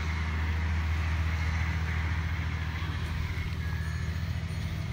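A steady low motor hum, running evenly without change.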